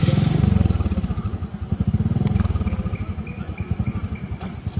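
A small engine running, heard as a rapid low pulsing that eases in the middle and swells again near the end.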